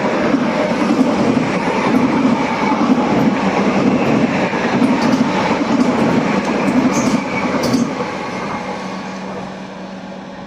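High-speed passenger train passing at speed in a loud, steady rush of wheel and rail noise, which dies away about eight seconds in, leaving a fainter steady hum.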